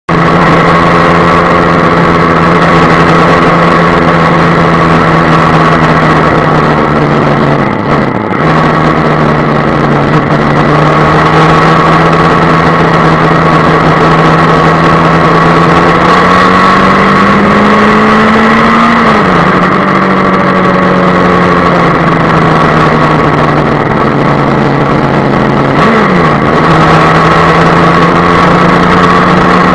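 Yamaha FZ6 S2's inline-four engine running at a steady cruising speed under a dense rush of wind and road noise. The engine note dips briefly about eight seconds in, climbs slowly and then drops sharply a little before twenty seconds, like a gear change, and dips once more near the end.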